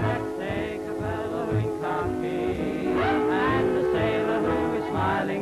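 Male close-harmony vocal group singing to a band accompaniment.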